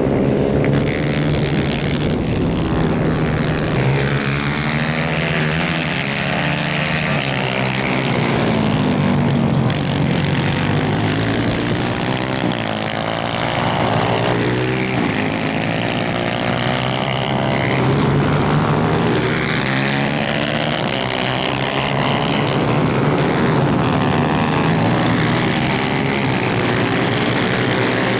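Several 250cc superkart engines racing at high revs, their pitch repeatedly rising and falling as the karts accelerate, shift and brake, with more than one engine heard at once.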